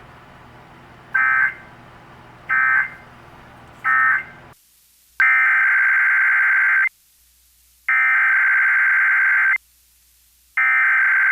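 Emergency Alert System SAME data bursts from a NOAA Weather Radio broadcast. Three short end-of-message bursts sound over faint radio hiss. Then, after a break, three longer header bursts, each about a second and a half, announce a new alert.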